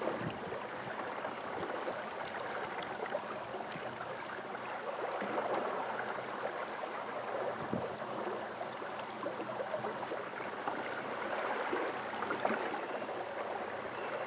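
Water lapping and gurgling steadily against the hull of a small boat on a creek, with no motor audible.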